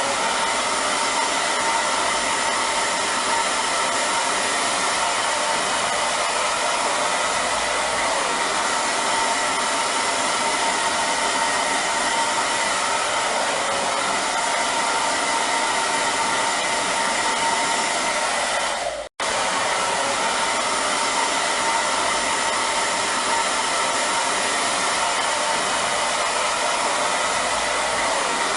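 Hair dryer running steadily: an even rush of blown air with a faint steady whine. It cuts out for a split instant about two-thirds of the way through, then carries on unchanged.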